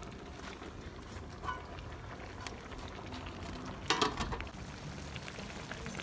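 Large pots of food boiling over an open wood fire, a steady bubbling hiss with scattered small crackles. There is a brief louder noise about four seconds in.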